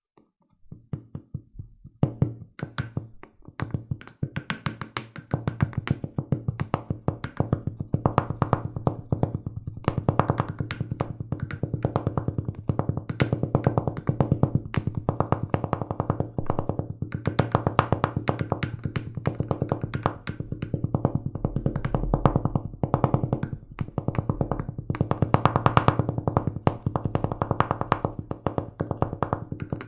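Instrumental background music led by a plucked guitar, with a quick, steady picking rhythm; it starts about two seconds in.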